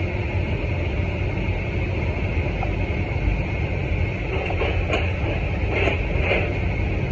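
Steady low mechanical drone with a thin high whine from cargo-loading machinery at an airliner's cargo door, with a few short rattles a little past halfway as a netted cargo pallet is rolled toward the hold over the loader and the ball-mat floor.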